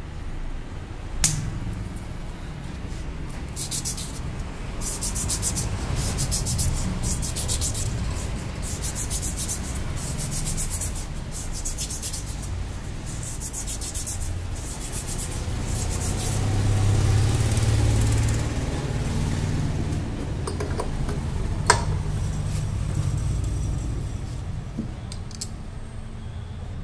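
Rubbing strokes inside the steel clutch drum of a Honda Activa scooter, as its lining surface is scrubbed by hand with a cloth and an abrasive pad, coming in quick rhythmic runs. A sharp knock about a second in and another a little past the three-quarter mark.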